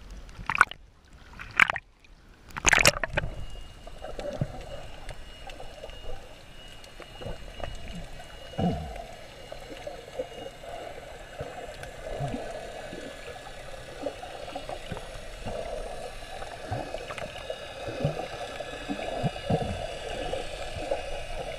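Water splashing against a snorkeler's camera at the surface for the first few seconds, then muffled underwater noise as the camera goes under: a steady low wash of water with scattered small clicks.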